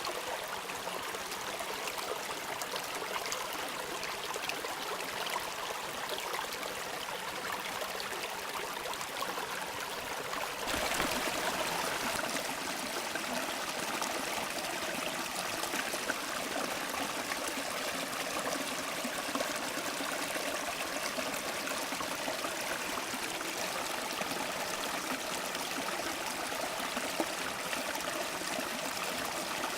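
Water of a stream running and trickling steadily. About eleven seconds in, the sound changes abruptly to a louder, fuller rush of flowing water.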